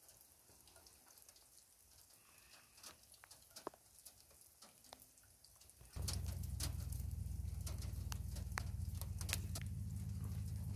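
Faint scattered ticks and taps, like water dripping on metal and glass. About six seconds in, a steady low hum starts abruptly and becomes the loudest sound, with the ticks continuing over it.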